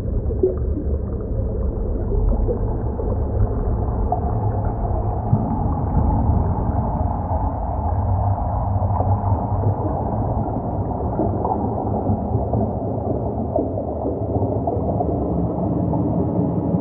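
Underwater recording of a pod of dolphins: a constant low rumble of moving water, with short squeaky calls scattered through it.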